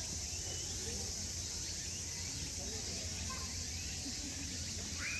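Steady high-pitched drone of insects, with faint distant chatter of people.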